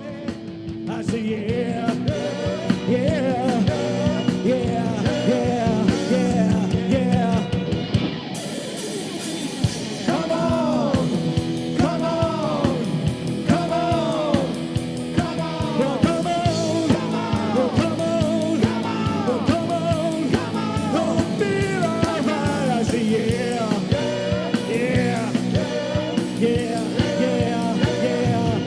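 Band music in a rock/country style, rising from quiet in the first second. A melodic lead line with sliding, curved notes repeats over sustained bass notes.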